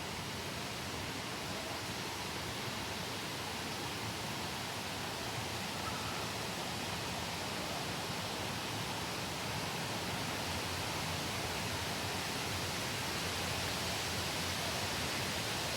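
Steady rushing of cascading water from a waterfall, growing slightly louder toward the end.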